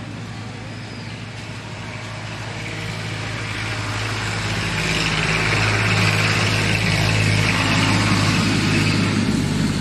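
An engine running steadily with a low hum, growing louder over the first half.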